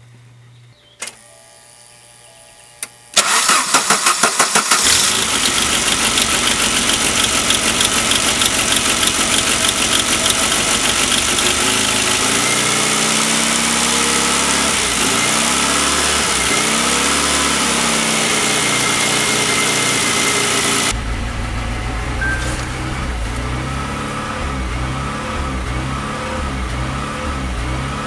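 A 1990 Saab 900S's four-cylinder engine is cranked by the starter and catches about three seconds in, after two clicks. It then runs loud and steady at a raised idle. About 21 seconds in it drops to a lower, uneven idle, which fits the car's ongoing idle problem.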